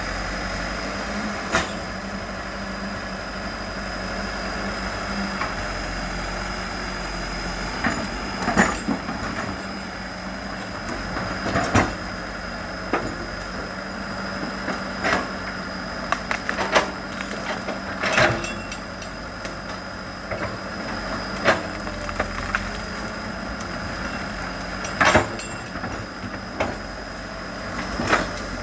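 Excavator's diesel engine running steadily, with a constant high whine, broken by about ten sharp cracks at irregular intervals as wood snaps while trees are pushed over.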